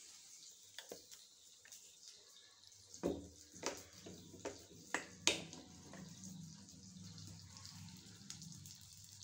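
A few light clicks and taps of a bottle and kitchen things being handled, over a faint low hum that starts about three seconds in.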